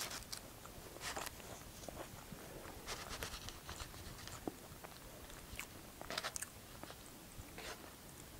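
Plastic knife and fork cutting into a sauce-covered wet burrito in a foam takeout container: scattered soft scrapes and taps of the utensils against the food and the foam.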